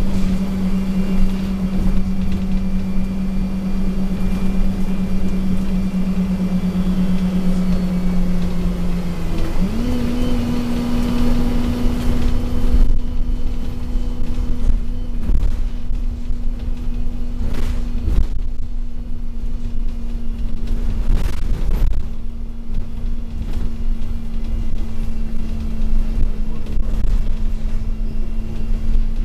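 Cummins six-cylinder engine and Voith four-speed automatic gearbox of an Alexander Dennis Enviro200 MMC bus heard from inside the saloon, with a loud drivetrain whine over a low rumble. The whine holds one pitch, steps up about ten seconds in and holds again, with a few knocks and rattles in the second half.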